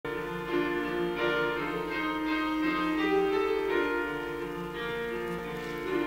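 Piano playing the introduction to a church choir anthem, with long-held chords.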